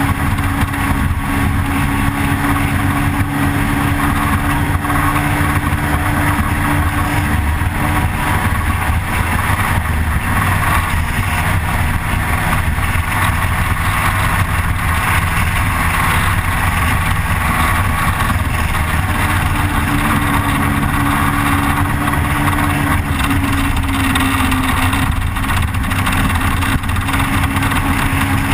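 Motorcycle engine running steadily at road speed, with wind rushing over a bike-mounted camera. A higher tone in the engine note fades out a few seconds in and comes back past the middle.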